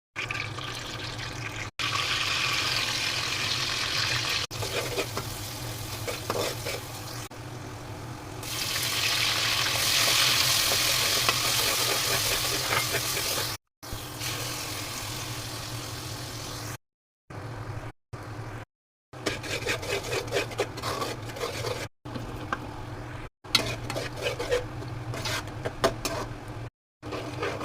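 Food sizzling as it fries in a pan, loudest for a few seconds in the middle, then a spoon stirring and clinking against the pot. It cuts off to silence several times between short clips, over a steady low hum.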